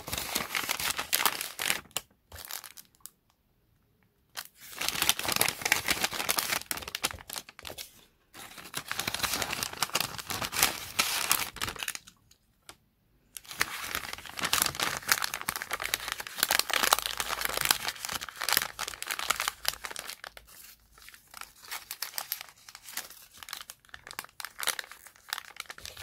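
Small kraft paper bags and cellophane-sleeved pins crinkling and rustling as they are handled, opened and folded shut. The sound comes in bursts broken by a few short pauses.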